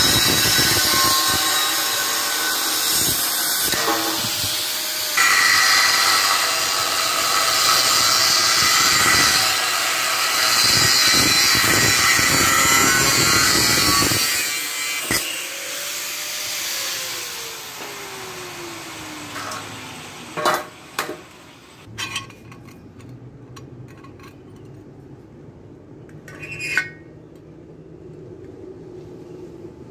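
Handheld angle grinder with a cut-off disc cutting and grinding thin-walled steel box bar, a loud continuous screech. About 14 seconds in it is switched off and the motor winds down with a falling whine. A few light metallic clicks and knocks follow.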